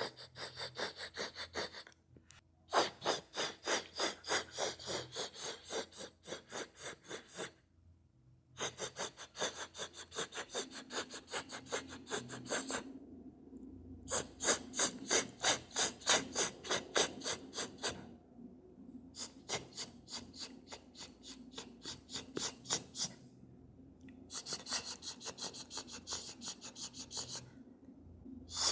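Vocal imitation of skin scratching: a person's mouth making a rapid, whispery "hhhck" hiss over and over, about six strokes a second, like a fast, whispered cat hiss. It comes in runs of several seconds with short pauses between them.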